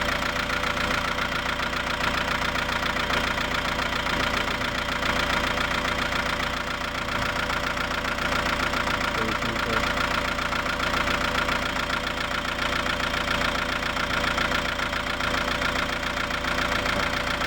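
Toyota Grandia's 2KD four-cylinder turbodiesel engine idling steadily at about 855 rpm, an idle speed the mechanic reads as right, now that the engine runs after a cranking no-start.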